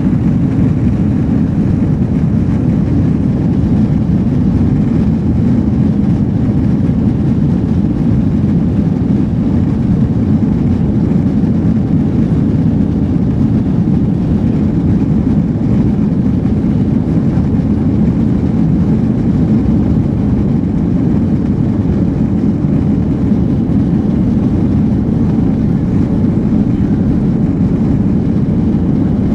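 Steady cabin noise of an airliner taxiing: a low, even rumble and engine hum heard from inside the passenger cabin.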